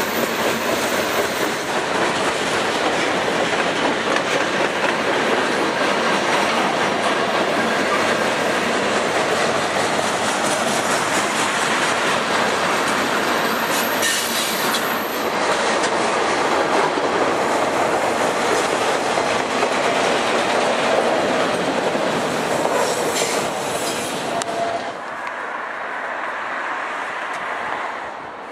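Freight train of tank cars and covered hoppers rolling past, a steady rumble and clatter of steel wheels on the rails that drops off about 25 seconds in.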